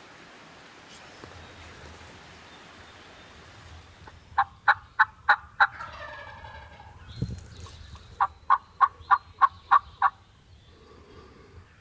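Turkey yelping: two series of short, sharp notes, about three a second, the first run of five about four seconds in and a longer run of seven near the end.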